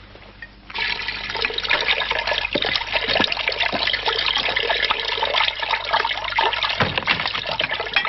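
Dishes being washed by hand in a basin: water splashing and sloshing with plates and crockery clinking, starting abruptly about a second in.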